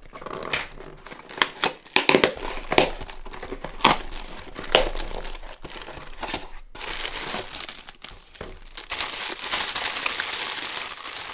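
Cardboard parcel being pulled open by hand, with crackles and rustles of the box and its packing, then the clear plastic film around a pouch crinkling as it is handled, denser and steadier near the end.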